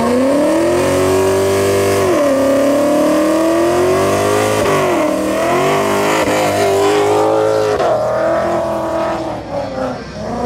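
Ford Mustang doing a burnout, its rear tyres spinning in smoke. The engine revs up hard in the first second and is held high, dropping and climbing again several times.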